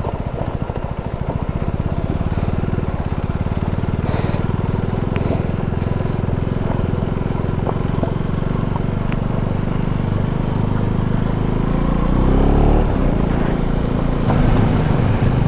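KTM 390 Duke's single-cylinder engine running steadily under a rider on loose gravel, its pitch rising briefly about twelve seconds in as it picks up speed. A few light ticks sound over the engine.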